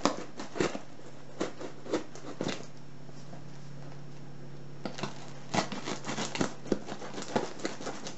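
Stanley knife cutting through a parcel's cardboard and packing tape: irregular scratchy cuts and crackles in two spells, with a pause of about two seconds in the middle.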